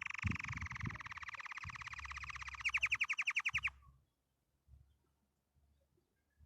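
Domestic canary singing a rapid, even trill, which turns into a louder, slower-pulsed trill near the three-second mark and stops about a second later.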